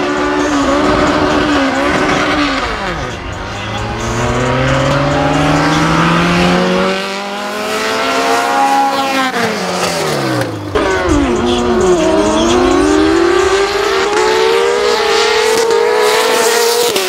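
Drag-race launches: race engines revving hard down the strip, their pitch climbing and then dropping sharply at each upshift, several times. Partway through, sport motorcycles take over, revving higher as they accelerate through the gears.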